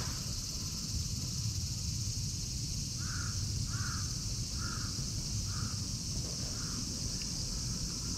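A crow cawing five times in an even series, roughly one caw a second.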